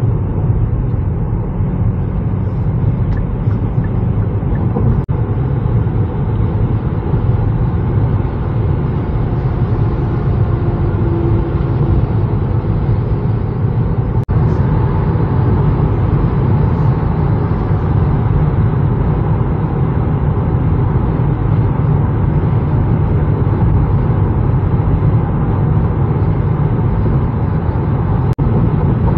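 Steady road and wind noise inside the cabin of a 2023 Kia Niro SX Touring hybrid at highway speed: a constant low tyre rumble with a fainter rush of wind over it. The reviewer calls this road and wind noise excessive.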